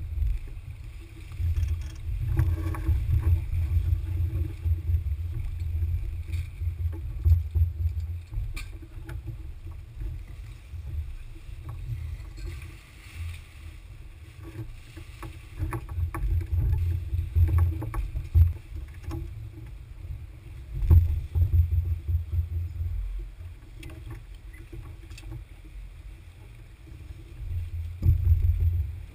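A Smaragd-class keelboat under way, heard from the bow: a low rumble of wind and water that swells and fades, with scattered knocks and clicks from the crew handling gear on the foredeck.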